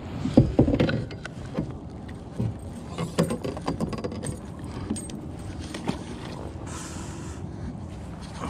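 Clothing rubbing against a body-worn camera, with scattered sharp clicks and knocks of gear being handled on a plastic kayak; the loudest knocks come in the first second.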